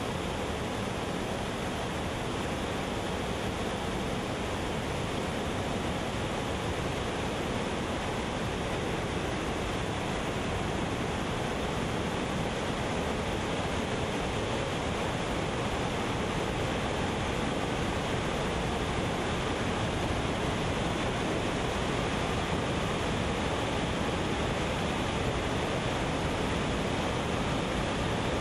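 Water pouring over a low dam's spillway and churning through the whitewater below: a steady, unbroken rush.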